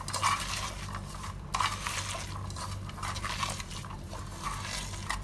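A hand squeezing and tossing sliced raw onions with salt in an aluminium pot, with irregular crackly squelching and scraping against the metal sides. The salt is being rubbed into the onions to draw out their juice for pakoda batter.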